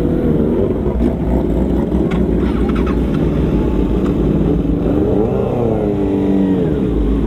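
Several sport motorcycle engines running at low speed as a group rides off, with one engine revved up and back down about five seconds in. The exhausts are loud, which the rider calls "bacot banget".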